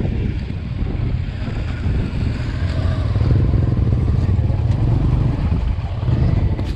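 Motorcycle engine running at low speed, heard as a steady low rumble that grows a little louder about halfway through, with wind buffeting the microphone.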